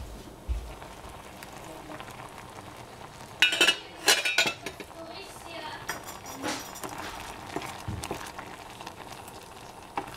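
Stainless-steel saucepan lid lifted off and set down on the stovetop, two metallic clanks with ringing about three and a half and four seconds in. Strawberry and apricot sauce simmering in the pan, with a wooden spoon scraping through it near the end.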